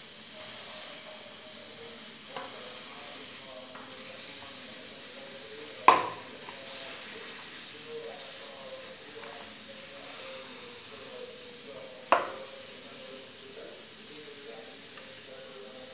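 A fork mashing boiled potatoes on a stainless steel plate, with faint scraping and tapping and two sharp metal clinks that ring briefly, about six and twelve seconds in, over a steady hiss.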